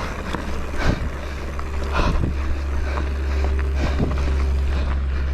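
Wind buffeting the microphone, a heavy steady low rumble, with scattered short clicks and rattles over it.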